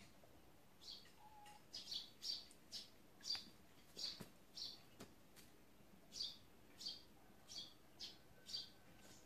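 Faint, repeated short high-pitched chirps from a small animal, about two a second with a brief pause midway.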